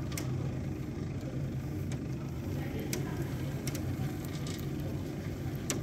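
Steady low mechanical hum of a modified window-washer lift's motor, with a few light clicks now and then.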